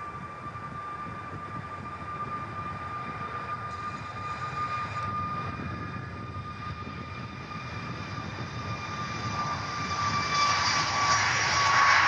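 Boeing 737 MAX's CFM LEAP-1B jet engines on the takeoff roll: a steady engine whine over a low rumble, growing much louder over the last few seconds as the aircraft accelerates past, its whine dipping slightly in pitch. Wind buffets the microphone throughout.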